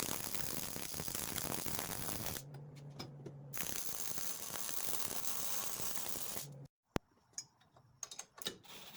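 Welding arc crackling steadily in two runs of a few seconds each, a brace being welded on a steel rotisserie mount; a low hum fills the short pause between the runs. The crackle cuts off sharply, leaving a few scattered clicks.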